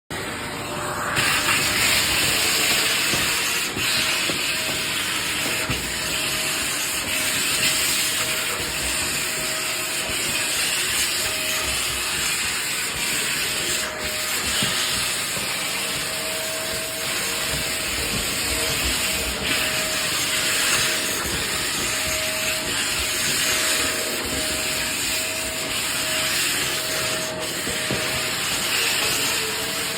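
Small vacuum cleaner running steadily, starting about a second in: a loud hissing rush of air with a steady motor whine.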